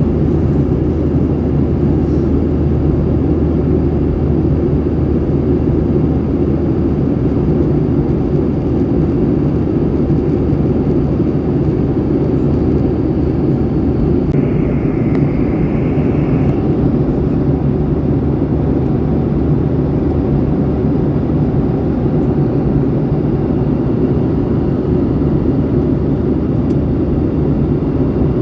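Steady jet-engine and airflow noise as heard inside an airliner's passenger cabin. A brief higher tone sounds about halfway through.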